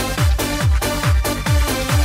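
Electronic dance music with a steady, punchy kick drum under repeating synth chords.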